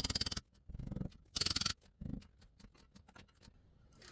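3/8-inch ratchet clicking in short, rapid runs as it is swung back and forth on a 13 mm wheel hub bolt, four runs in the first two seconds, then a few faint scattered ticks.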